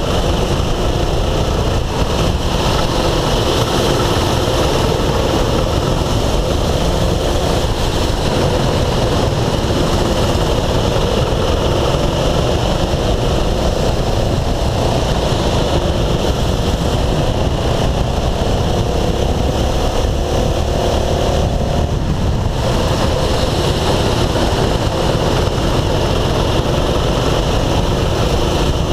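Go-kart engine running at speed, heard from on board the kart over heavy wind and road noise. Its pitch climbs for a few seconds past the middle as the kart accelerates, then drops away briefly.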